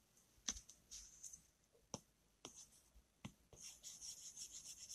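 Faint tapping of a stylus tip on a tablet's glass screen, a few light ticks, then about a second and a half of quick scratchy back-and-forth rubbing near the end as the pen scrubs out a sketch.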